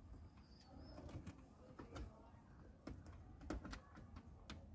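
Faint, irregular clicks and taps of fingers pressing a silicone light-diffuser strip into the plastic trim around a car's centre console.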